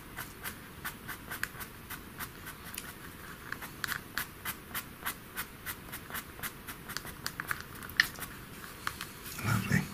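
Faber-Castell Pitt pastel pencil tip scratching across pastel paper in quick, short hair-like strokes, about two to three a second. Near the end there is a brief, louder low-pitched sound.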